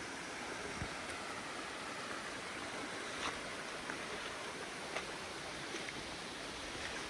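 Steady rushing of a mountain stream flowing, with a few faint, brief clicks scattered through it.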